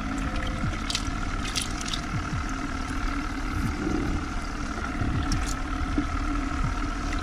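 Water splashing and trickling as a hand stirs through a bait bucket of live mojarra baitfish, with an aerator hose bubbling air into the water and a steady hum. A steady low rumble runs underneath.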